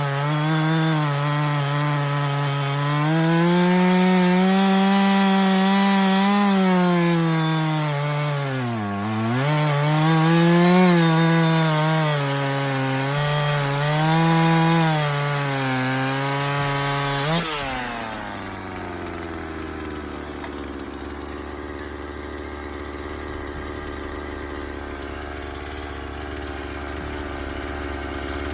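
Husqvarna chainsaw cutting through a sycamore log at high revs, briefly bogging down about a third of the way in, then released to a steady idle a little past halfway.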